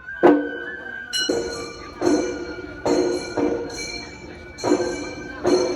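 Gion-bayashi festival music: small brass hand gongs (kane) struck about once a second, each stroke ringing on. A high held flute note fades out about a second in.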